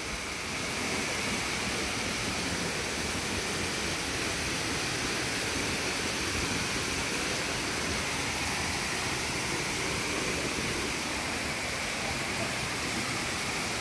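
Waterfall rushing steadily: a constant wash of falling water with no breaks, growing a little louder about a second in.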